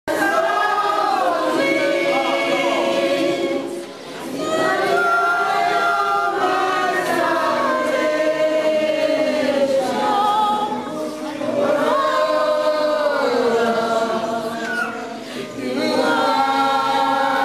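A congregation singing a worship song together, without instruments, in long phrases that break briefly about 4, 11 and 15 seconds in.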